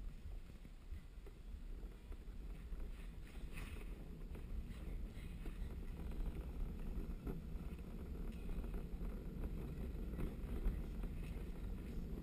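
Wheels of a luge cart rolling down the track: a steady low rumble with wind on the microphone, growing a little louder as the cart picks up speed.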